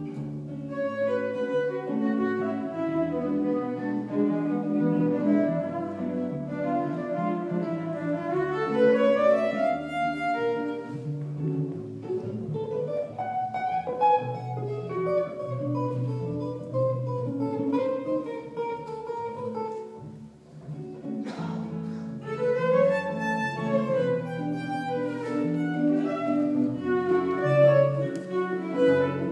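A violin and an archtop guitar playing an instrumental duet live, the violin carrying the melody with some sliding notes over the guitar's plucked accompaniment. The music eases off briefly about two-thirds of the way through.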